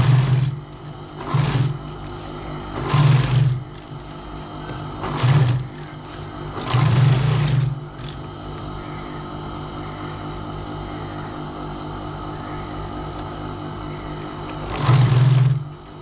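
Industrial sewing machine stitching leather in short runs, six of them, the longest about a second, with a steady hum between runs.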